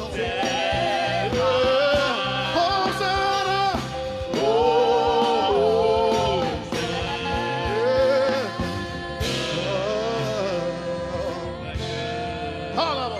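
Live gospel worship music: a singer holding long, wavering notes with no clear words over instrumental backing.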